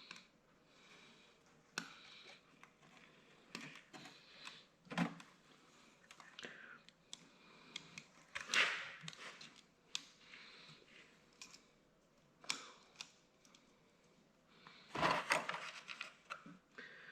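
Small metal parts and hand tools being handled on a bench: scattered clicks and taps with short scraping bursts, the loudest about halfway through and again near the end.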